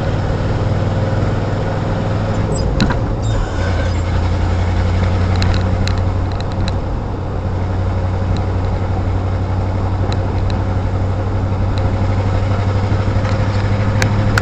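A car engine running steadily under way, heard from inside the car. Its drone drops in pitch about three seconds in, then holds steady, with a few light knocks and rattles over a rough road.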